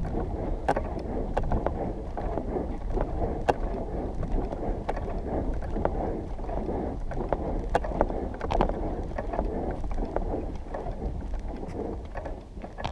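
Steady rustling noise with scattered sharp clicks, made by a person walking across dry dirt in an analog spacesuit: suit fabric and fittings rubbing, footsteps, and wind on the suit-mounted microphone.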